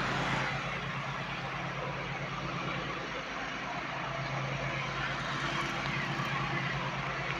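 WDG6G diesel-electric freight locomotive engine chugging steadily, mixed with the running noise of a goods train on the track.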